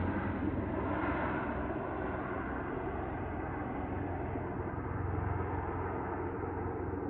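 Helicopter flying away overhead: a steady rotor and engine drone that slowly grows duller and a little quieter as it recedes.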